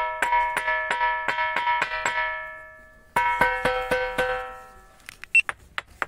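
A ringing rock struck over and over with a hand-held stone, about four strikes a second, each ringing out with a bell-like tone of several pitches. The strikes pause just under three seconds in, then start again and die out about a second later. Near the end come a few dry knocks with no ring.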